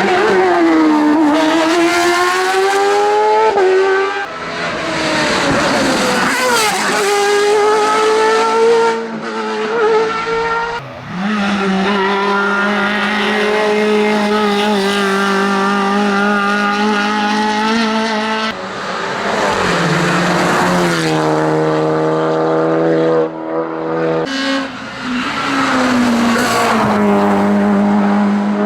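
Hillclimb race car engines at full throttle, pitch climbing and then dropping sharply several times as the cars shift through the gears and pass.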